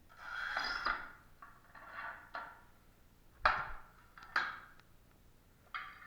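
Two stretches of scraping, then three sharp knocks with brief ringing, as of hand tools at work on hard material.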